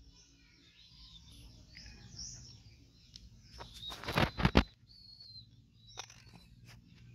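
Small birds chirping faintly and intermittently in the background, with a brief loud flurry of rustling strokes about four seconds in and a single click near the end.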